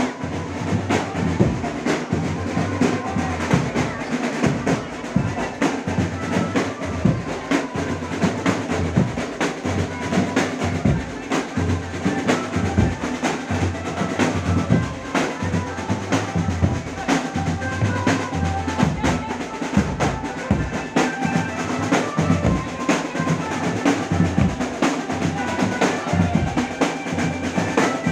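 Loud drum-driven music with rapid, steady drum strokes and a thin melody line over them: the live accompaniment for a jaran kencak dancing-horse performance.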